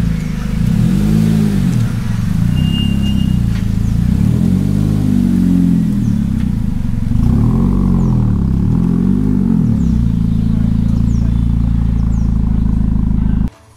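A motor vehicle engine running, its pitch rising and falling again and again as it is revved or driven through the gears.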